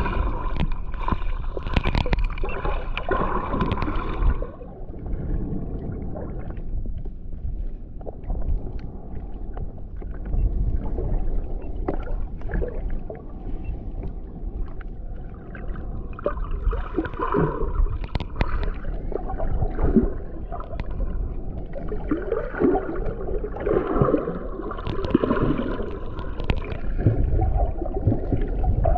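Muffled underwater sound picked up by a camera held below the surface: a constant low rumble of moving water with gurgling, bubbly swells and scattered faint clicks.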